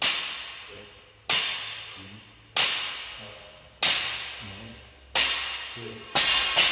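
A 52.5 kg barbell with rubber bumper plates hits the floor on each deadlift rep, about every 1.3 seconds, six times. Each hit rings on briefly in the room. The last hit, near the end, is longer and rattles.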